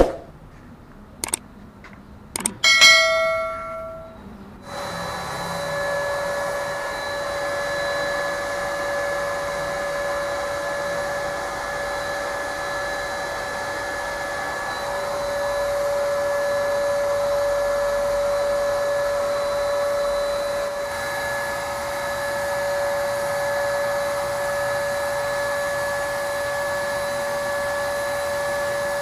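A few clicks and a short metallic ring, then about five seconds in an electric paint sprayer's blower motor starts and runs steadily, a constant hum with a steady whine in it.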